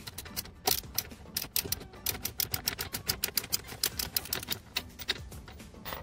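Ratchet wrench clicking in quick, uneven runs as it tightens the rear axle nut of an electric scooter's hub-motor wheel.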